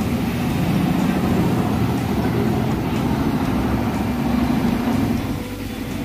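Canal taxi boat's engine running steadily under way, heard from aboard as a loud, deep drone; it eases off slightly about five seconds in.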